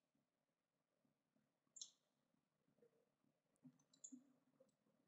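Near silence with faint computer mouse clicks: one about two seconds in, then a quick pair about four seconds in.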